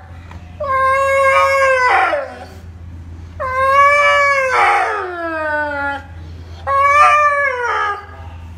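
A husky 'singing': three long, drawn-out howling calls, each held steady and then sliding down in pitch at its end.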